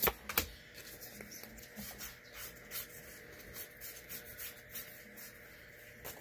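Magic: The Gathering cards being handled and flipped through: two sharp clicks right at the start, then soft, irregular ticks and scrapes of card sliding over card.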